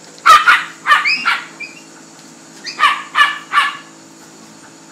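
Small dog yapping in short, high-pitched yelps: a quick run of four near the start and another run of four about three seconds in.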